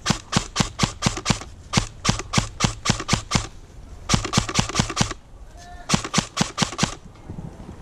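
Airsoft rifle firing rapid sharp shots, about five a second, in three strings: one of about three seconds, then two shorter ones of about a second each with brief pauses between.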